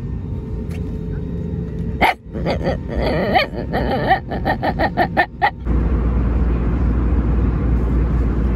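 A small dog in a soft mesh pet carrier lets out a string of short whining cries over the steady drone of an airliner cabin. A little under six seconds in, the cabin drone jumps to a louder, steady low rumble.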